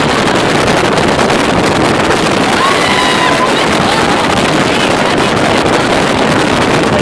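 Steady, loud wind buffeting the microphone over a motorboat running at speed, with the rush of its wake.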